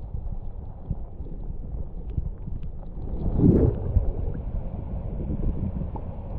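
Rushing river water, heard muffled through a camera held under the surface, with faint scattered knocks; about three and a half seconds in, a louder swish of water.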